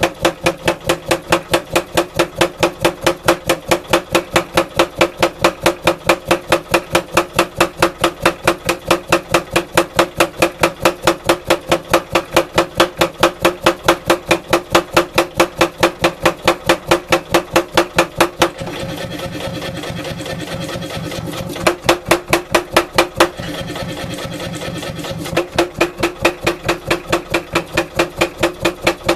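Mechanical power hammer with a 16 kg head striking a wootz steel ingot being drawn out into a bar, in a steady rapid run of blows. Twice, near two-thirds through and again shortly after, the blows stop for a few seconds, leaving only the machine running, then resume.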